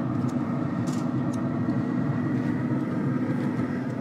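Traeger pellet grill's fan running with a steady hum, with a few faint light clicks in the first second and a half.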